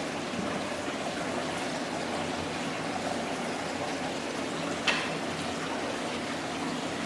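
Steady running water, a continuous trickling and splashing, with a single short click about five seconds in.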